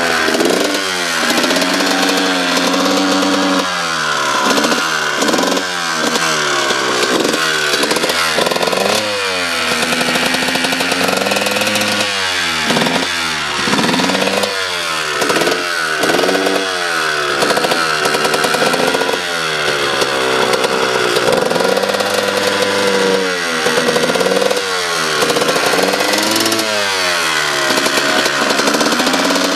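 Kawasaki two-stroke dirt bike engine revved again and again, its pitch shooting up and dropping back in quick blips, with short spells of steady idle between the runs.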